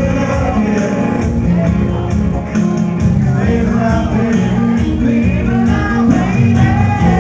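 Live band music: guitars playing with a man singing, over a steady percussive beat.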